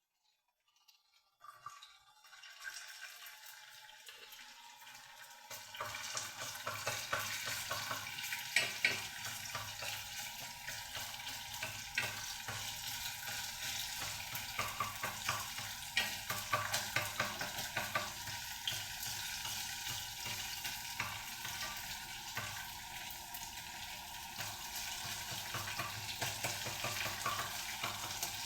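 Food sizzling in a frying pan while it is stirred, with small clicks of the utensil against the pan. It starts out of near silence, then grows louder about six seconds in, when a low steady hum joins.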